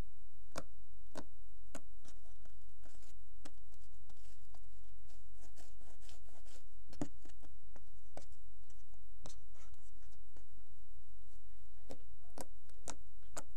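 Fingers squeezing, folding and poking a lump of pink confetti slime, making irregular small sticky pops and clicks, over a steady low hum.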